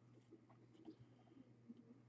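Near silence: room tone with a few faint small clicks and light rustling.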